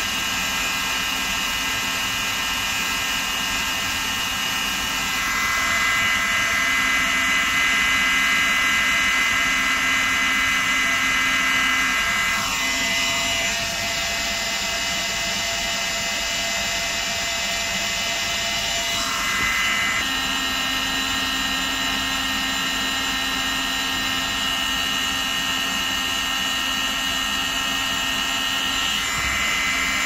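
A Worx Sonicrafter oscillating multitool running under a vibration measurement, a steady high buzz whose pitch and loudness change several times.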